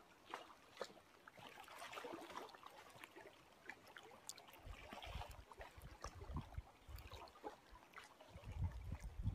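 Small lake waves lapping and trickling with faint little splashes. From about halfway through, low gusts of wind rumble on the microphone.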